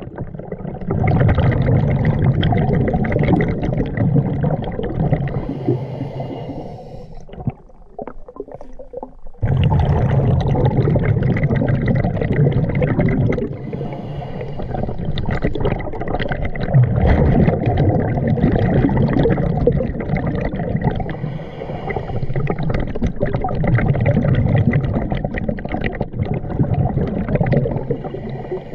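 Scuba diver's breathing heard underwater: regulator hiss and bursts of exhaled bubbles, swelling and fading in cycles of a few seconds, with a quieter lull of about two seconds a quarter of the way in.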